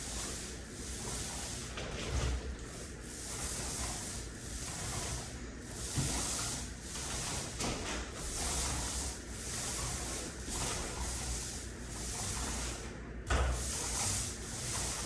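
Hand sanding: steady back-and-forth strokes of abrasive on a wall surface, about one stroke a second.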